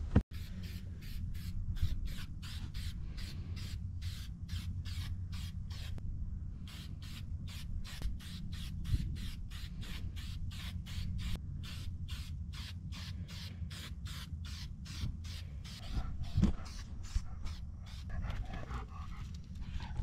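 Aerosol spray can of clear gloss sprayed over a bleached longhorn skull in short, quick bursts of hiss, about two to three a second, with a brief pause partway through. A steady low rumble runs underneath.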